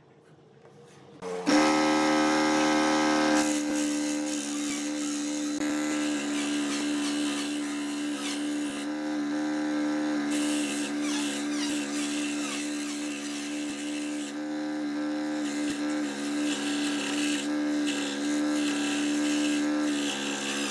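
Scroll saw switched on about a second and a half in, then running with a steady hum while its reciprocating blade cuts a thin strip of wood; the higher cutting hiss drops out briefly twice.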